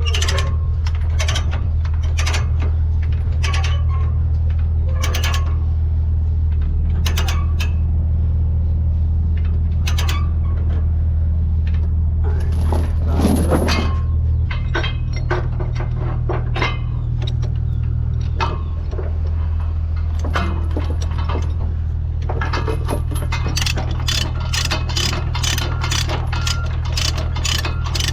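Tie-down chains clinking and ratchet binders clicking as the load is chained down, with a diesel engine idling steadily underneath. The clicks come irregularly, then fast and close together near the end.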